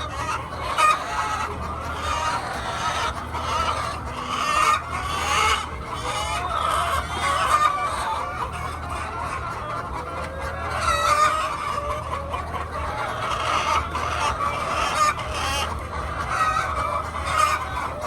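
A large flock of laying hens clucking and calling over one another without pause, over a steady low hum.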